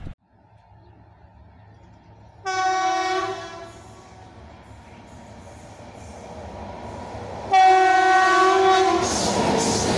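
Horn of an approaching express train's electric locomotive: two blasts, a short one and then a longer, louder one, followed by the rising rumble of the locomotive and coaches arriving alongside.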